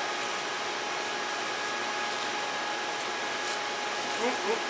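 A fan running with a steady whir and a faint high whine held at one pitch.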